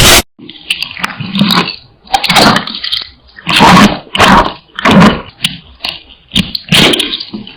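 Close-miked eating sounds: wet chewing and mouth smacking in repeated bursts, roughly one every 0.7 seconds, with sharp clicks.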